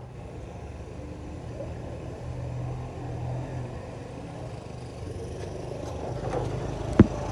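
Car engine running with a steady low rumble, growing a little louder near the end, with a single sharp knock about seven seconds in.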